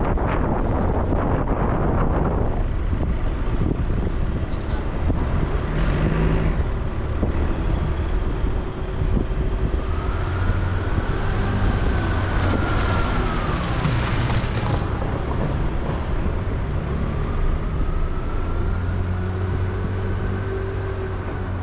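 Car driving through city traffic: a steady low rumble of engine and tyres on the road, with other traffic around. About halfway through, and again near the end, a whine rises and then falls.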